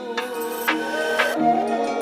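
Background music with gliding melodic lines over sustained notes and regular percussion strikes.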